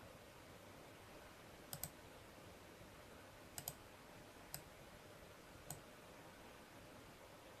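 Computer mouse button clicking over faint steady hiss: two quick double clicks, then two single clicks about a second apart.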